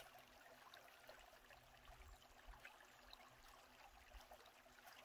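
Faint, steady trickle of a shallow stream running over a gravel bed.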